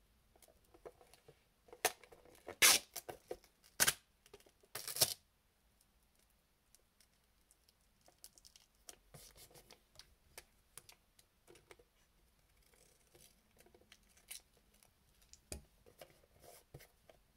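Wide silver adhesive tape being pulled off its roll in several sharp rips in the first five seconds. Then quieter rubbing and crinkling follow as the tape is smoothed down onto a cardboard box.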